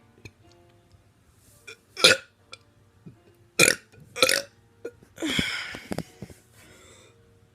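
A teenager burping: three short, loud burps about two, three and a half and four seconds in, then a longer, drawn-out burp about five seconds in.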